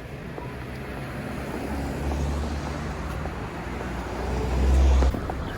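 Low rumble of a road vehicle, growing louder and then cutting off abruptly near the end.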